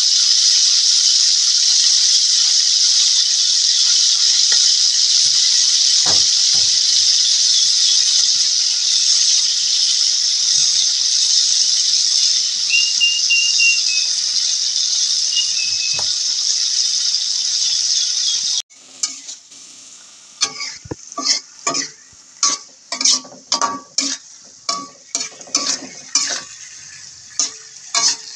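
Salted fish (jambal roti) pieces frying in hot oil in a wok: a loud, steady sizzle, with a metal ladle clinking against the pan a few times. About two-thirds of the way through it cuts off abruptly, and a metal spatula scrapes and clatters against the wok in quick strokes as chilies, shallots and tomato are stir-fried with a quieter sizzle.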